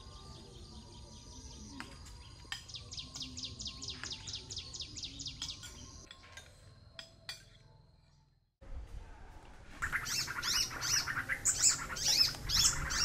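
Birds chirping, with a fast run of repeated high notes, fading to silence about eight seconds in; a louder, busier chorus of bird calls starts about ten seconds in.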